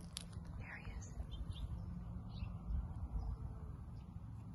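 Birds chirping in short, scattered calls, over a steady low rumble.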